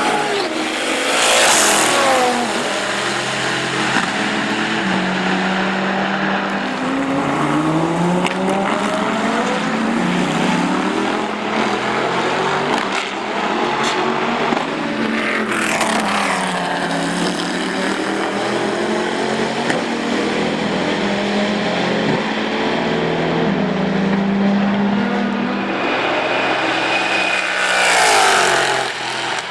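Racing cars at full throttle, among them the Panoz Esperante GTR-1's 6-litre Ford-Roush V8, with the engine note climbing and dropping through gear changes. Three loud pass-bys, near the start, halfway through and near the end, each dropping in pitch as the car goes by.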